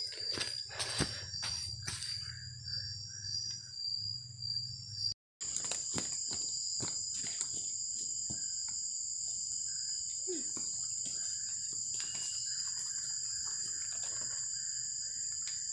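Night-time insect chorus: a steady high-pitched ringing at two pitches, with softer repeated chirping lower down. Scattered clicks and rustles of handling in the first couple of seconds, and the sound cuts out for a moment about five seconds in.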